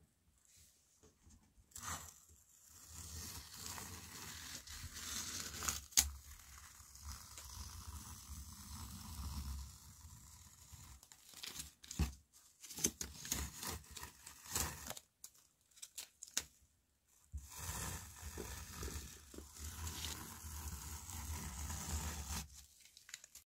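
Tearing and crinkling in three long stretches, with a couple of sharp clicks in between.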